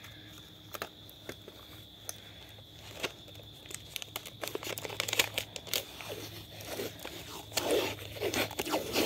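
Blue Scotch tape being pulled off the roll, torn and pressed around a BB gun stock: crackling and ripping sounds, sparse at first, getting busier and louder over the last few seconds.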